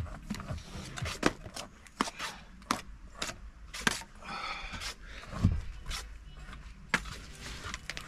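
Steel bricklaying trowel scraping and tapping wet mortar on concrete blocks: a string of sharp clicks and scrapes, with one heavier low knock a little past halfway.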